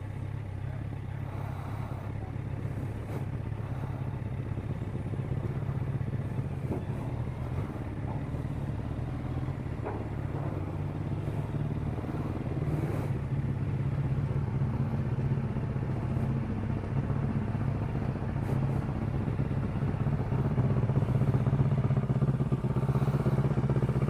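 Kawasaki ER-6n parallel-twin motorcycle engine running at low speed, a steady low drone that grows gradually louder over the stretch.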